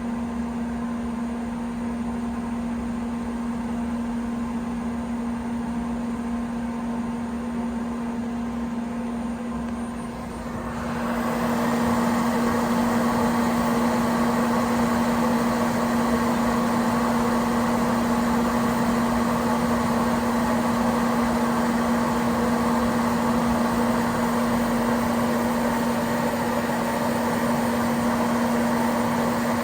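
Citizen Cincom Swiss-type CNC lathe running, with a steady hum throughout. About eleven seconds in, a louder, fuller machining noise joins in and carries on steadily.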